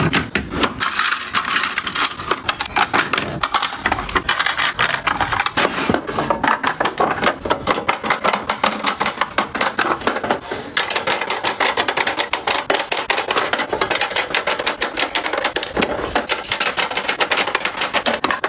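A fast, continuous run of sharp clicks and clacks: small plastic skincare and makeup containers being handled, tapped and set down into place.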